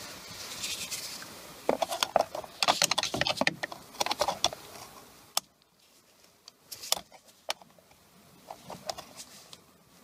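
Clicking and light rattling of a screwdriver prying at a steering-wheel airbag's plastic connector. There is a busy run of small clicks in the first half, then a few separate sharp clicks.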